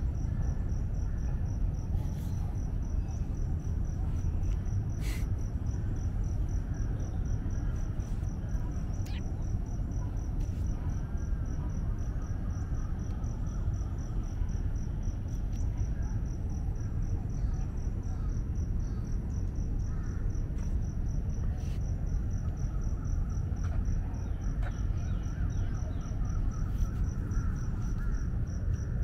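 An insect trilling steadily in fast, even high-pitched pulses over a steady low outdoor rumble.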